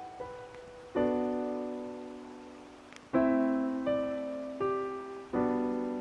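Background piano music: slow chords and single notes struck every second or so, each left to ring and fade.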